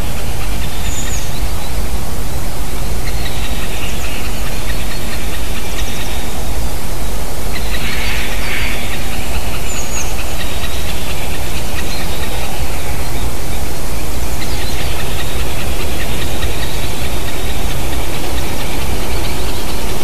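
Steady loud rushing noise with a low rumble. Bird calls come faintly through it: two short, high, falling chirps, and a harsher call about eight seconds in.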